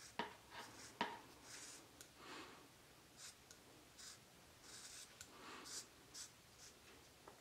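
Faint scissor snips and rasps as the blades cut through a foam Beauty Blender makeup sponge: a sharp blade click near the start and another about a second in, then a run of soft, short cutting strokes.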